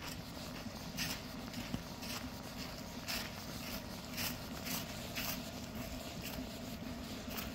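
Footsteps crunching at an even walking pace on a packed fine-gravel trail, about two steps a second, over a steady low rumble.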